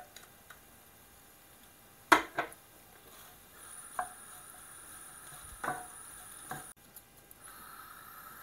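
A spatula stirring a minced meat and vegetable samosa filling in a stainless steel pot, knocking against the pot about five times, the loudest about two seconds in. The filling sizzles faintly as it cooks.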